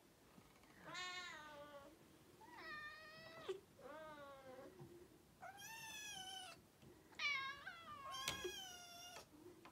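Cat meowing repeatedly: about six drawn-out meows, each lasting roughly a second, rising and falling in pitch.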